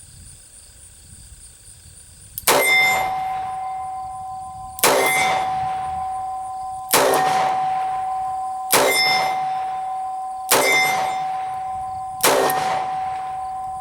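Six revolver rounds striking a steel target about two seconds apart. Each hit is a sharp clang that rings on in a clear, steady tone, fading over about two seconds.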